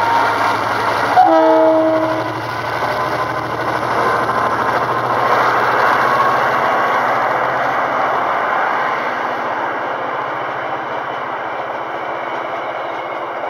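A train's horn gives one short chord about a second in, then a passenger train with a locomotive in front rolls past close by. Its carriages' wheels make a steady rumble on the rails that eases slightly toward the end.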